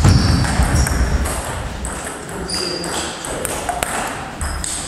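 Table tennis ball clicking off rackets and the table in a doubles rally, with players' feet thudding and squeaking on the floor. The thudding is loudest in the first second.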